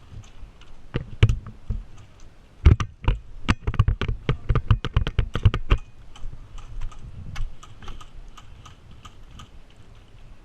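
Airsoft gunfire: a quick, irregular string of sharp snapping shots, densest and loudest in the first half, then thinning to fainter clicks.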